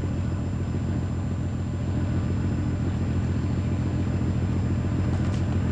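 Locomotive running with a steady low rumble and a fast, even pulsing.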